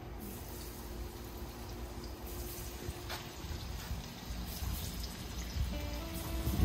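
Hot oil sizzling steadily in a large cast-iron pot as plantain fries, with faint background music coming in near the end.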